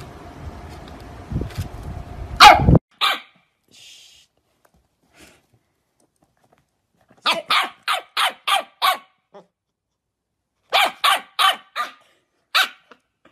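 Corgi puppy barking in two quick runs of five short barks, about three a second, then one last bark near the end. Before that, a loud sharp sound about two and a half seconds in.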